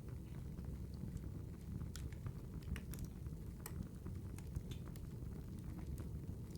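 Burning firewood crackling: a steady low rumble with irregular sharp pops and snaps, a few each second.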